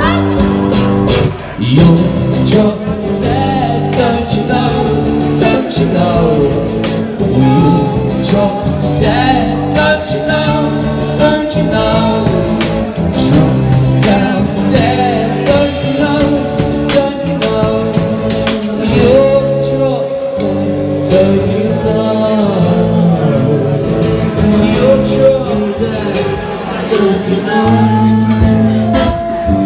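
Live song: strummed acoustic guitar and a sung vocal melody over a drum kit, played continuously.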